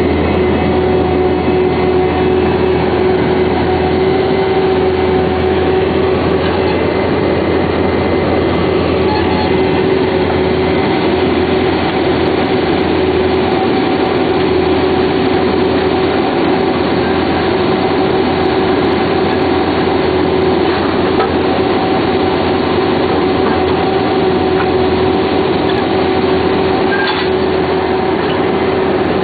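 Vermeer D24X40 Series 2 horizontal directional drill running steadily: a loud, even diesel-and-hydraulic drone with a constant mid-pitched whine.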